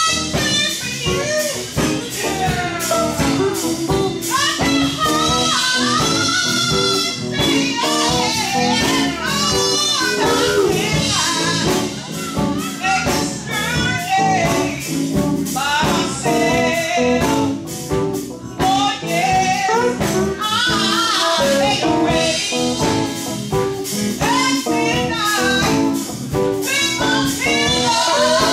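A woman singing a gospel song with vibrato, backed by a live band of steel guitar, keyboard and drums keeping a steady beat.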